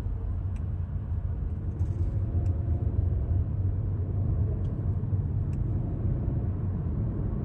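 Audi Q3 on a road test, steady low engine and road rumble as it is shifted up a gear. No abnormal gearbox noise is heard: the repaired transmission's noise fault is resolved.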